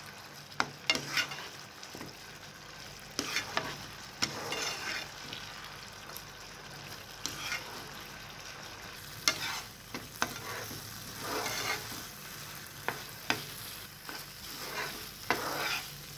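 A plastic spatula stirring and pressing thick semolina upma in a non-stick frying pan: irregular wet scrapes and sharp knocks against the pan every second or two, with the cooking upma sizzling underneath.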